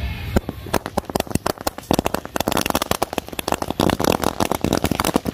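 A 200-shot firecracker string (ladi) going off: a fast, irregular run of sharp bangs, dense and overlapping, that starts about half a second in and lasts about five seconds.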